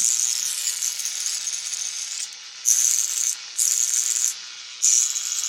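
Vintage violet ray high-frequency therapy device running, its glass electrode discharging with a crackling, sizzling hiss. There is one long burst, then three shorter ones about half a second to a second long, over a faint steady hum.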